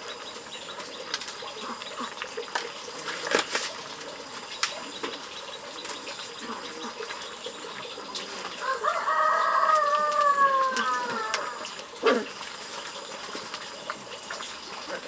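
A rooster crowing once, a drawn-out call of about two and a half seconds that starts a little past halfway through and falls in pitch at the end.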